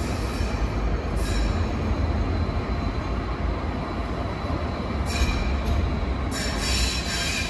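Alstom Citadis 305 tram running through an underground light rail stop: a steady deep rumble, with high-pitched wheel squeal that comes in about a second in and is strongest over the last two or three seconds.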